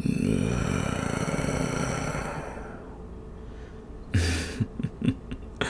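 A whooshing effect starts suddenly and fades away over about three seconds. About four seconds in comes a short breathy exhale, a sigh, followed by a few faint mouth clicks.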